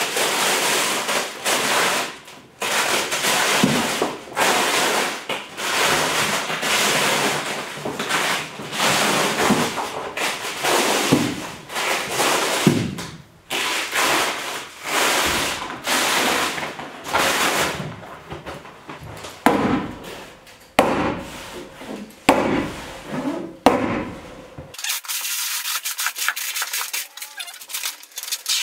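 Stiff tar paper crinkling and rubbing against a board wall as sheets are held up and pressed into place, in repeated noisy bursts of a second or two. Near the end the sound thins to a string of quick light ticks.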